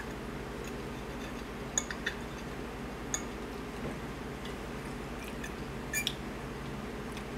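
A metal fork clinking and scraping against a plate a few times, two clinks close together about six seconds in, over a steady low hum.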